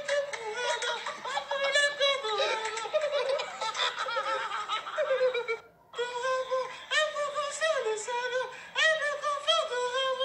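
Men laughing hard in high-pitched, repeated peals, breaking off for a moment a little past halfway.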